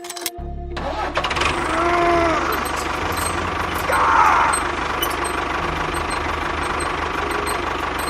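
A small motor-driven machine running with a steady rattling hum, with two short squeals about two and four seconds in.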